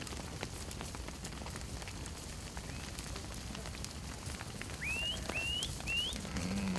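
A flock of sheep shuffling over the ground: a steady patter of small hoof clicks and rustling over a low rumble. About five seconds in come three short chirps, each rising in pitch.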